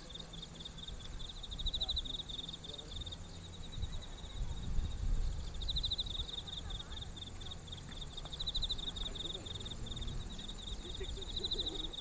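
Crickets chirping in repeated pulsed trills, phrase after phrase, over a low distant rumble from the departing train that swells around the middle.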